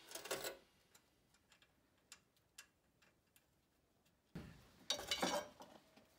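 Faint metallic clicks and clinks of a pickup's front steering knuckle and hub assembly being handled into place against the suspension, a handful of separate ticks. Near the end, a short rattle and scrape as wrenches and bolts on the concrete floor are handled.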